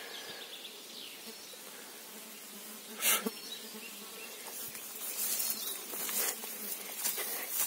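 Flies buzzing close around the microphone in a steady hum. There is a sharp rustle about three seconds in, and from about five seconds on, grass and vegetation rustle as someone moves through it.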